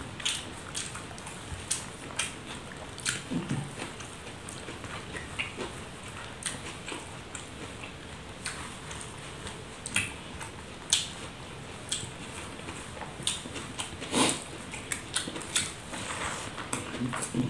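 A man eating rice by hand off a banana leaf: chewing, with irregular short clicks and smacks from his mouth and his fingers working the rice on the leaf. The sharpest click comes about fourteen seconds in.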